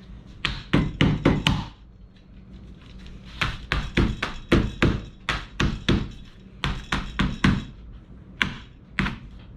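Sharp knocks tapped out in a rhythm like a tune, in short runs of several blows with a pause of about a second and a half after the first run.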